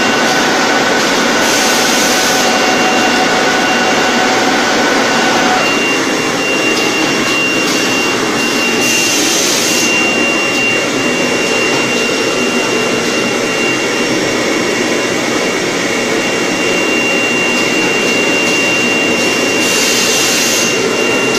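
Handkerchief pocket tissue production line machinery running: a loud, steady mechanical noise with a constant high whine. A lower tone drops out about five seconds in, and a brief hiss comes three times.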